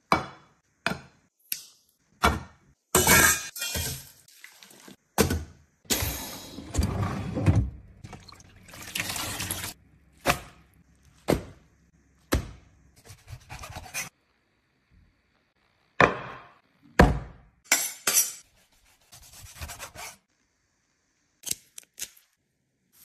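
A string of short kitchen handling sounds as hotpot ingredients are prepared: dishes and bowls set down with clinks and thunks, and food being handled on a cutting board and in a glass bowl. A few longer rustling, scraping stretches come between the single knocks.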